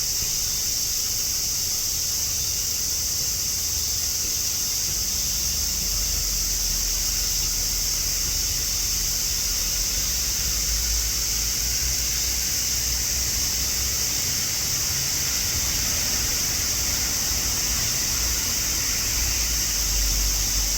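Chorus of many cicadas singing together in a steady, high-pitched drone, with gusts of wind rumbling on the microphone from about six seconds in.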